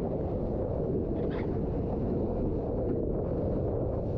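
Steady low rumble of wind buffeting the microphone over the wash of the sea, with a brief hiss about a second in.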